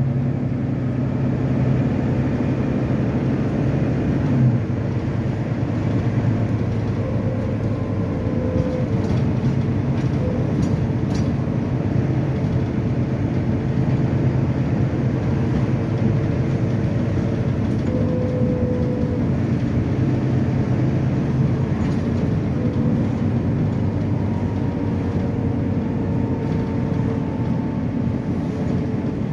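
Volvo B9TL double-decker bus's six-cylinder diesel engine running steadily as the bus drives, with a low hum and road noise throughout.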